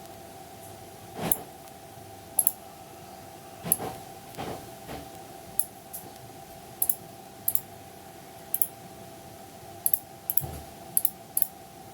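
Irregular sharp clicks, about a dozen spread unevenly, over a steady hum.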